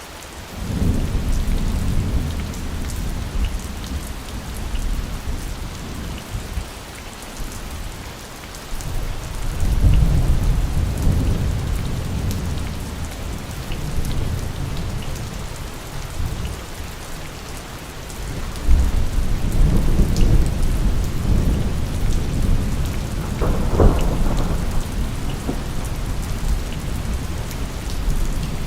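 Steady rain falling, with rolling thunder rumbling in three long swells: about half a second in, about nine seconds in and about eighteen seconds in. A sharper crack of thunder comes near the end.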